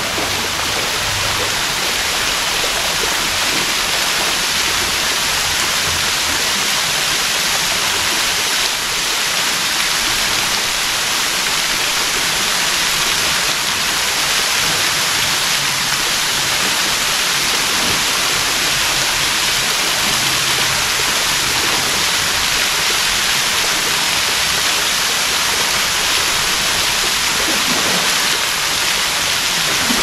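Bayad Waterfall, a little waterfall falling down a rock face into a shallow pool: a steady, even rush of falling water.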